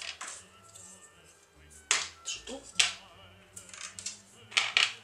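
Small parts clicking and clattering on a hard desk as they are picked up and set down: short sharp clicks about two seconds in, again near three seconds, and a quick pair near the end.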